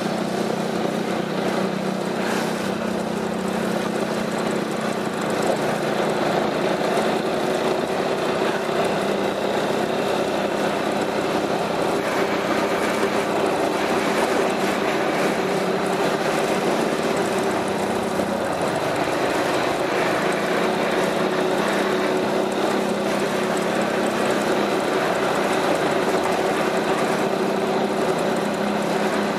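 Piaggio MP3 400's single-cylinder engine running steadily through an aftermarket Akrapovic exhaust, its pitch holding steady.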